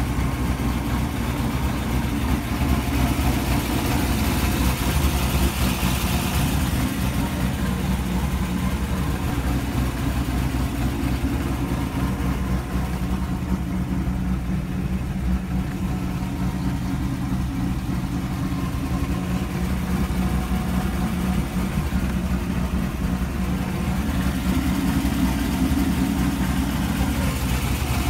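2004 Corvette Z06's 402 cubic-inch stroker V8 idling steadily.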